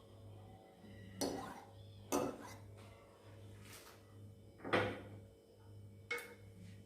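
Kitchenware knocking four times, sharp knocks with a short ring, over a low steady hum.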